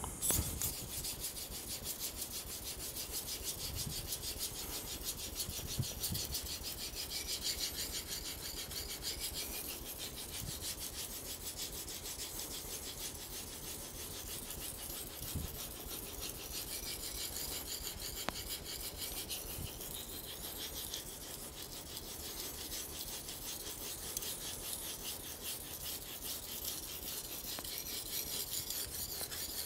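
Steel knife blade stroked rapidly back and forth on a wet Aizu Japanese natural whetstone, a middle-grit nakatoishi with only a thin slurry on it: a steady, fast, hissing scrape. The sharpening raises a burr on the edge.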